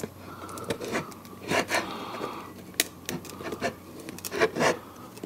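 Pry tool scraping and clicking under the glued-in battery of a Samsung Galaxy Tab A8 tablet, in short irregular strokes, as the battery is levered up off its adhesive because the pull-tabs have broken.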